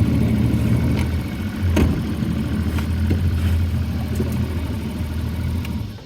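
Boat's outboard motor idling with a steady low hum, then stopping near the end. A short knock about two seconds in.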